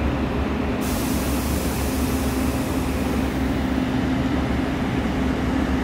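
WAP-7 electric locomotive running with a steady low drone and hum. A hiss starts suddenly about a second in and fades away by about halfway through.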